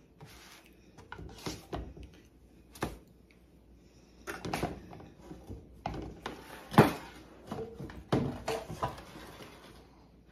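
Cookware being handled on a flat-top stove: a metal spatula, a nonstick skillet and a lidded stainless stockpot clink and clunk as they are moved and set down. The knocks are irregular, with the loudest clunk about two-thirds of the way through.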